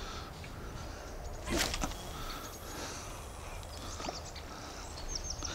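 Outdoor ambience: a steady low rumble of wind on the microphone, faint bird calls with short high chirps near the end, and one brief rustling whoosh about a second and a half in.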